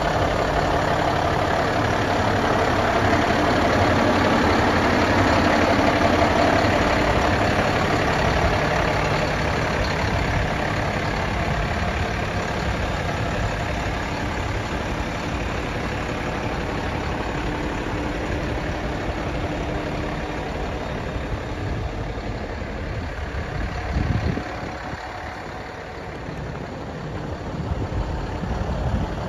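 Paccar PX-8 inline-six diesel of a 2011 Peterbilt 348 liquid floater idling steadily. It is loudest early and grows fainter in the second half, with a short knock about 24 seconds in.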